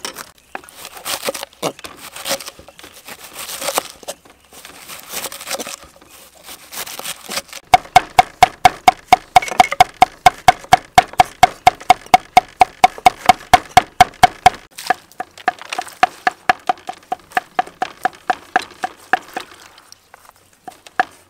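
A knife cutting through a cabbage head on a wooden chopping board with uneven crunching cuts. About eight seconds in, a cleaver starts mincing garlic on the board in rapid, even knocks, about five a second, each stroke ringing from the steel blade. The knocks ease off near the end.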